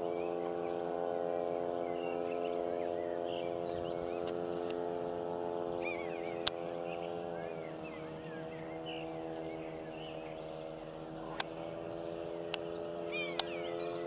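A steady motor hum that steps slightly lower in pitch about halfway through, with small birds chirping and four sharp clicks, the first about halfway and three near the end.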